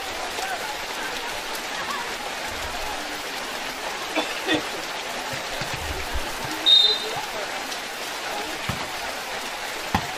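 Heavy rain falling steadily on a paved outdoor court, a constant hiss. A few short knocks are heard, and about two-thirds of the way in comes one brief shrill whistle-like blast, the loudest sound.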